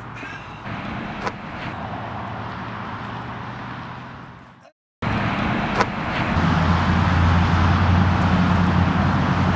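Steady rumble of road traffic or a running vehicle engine, with a low hum, and a couple of sharp knocks. The sound cuts out for a moment about five seconds in, then comes back louder.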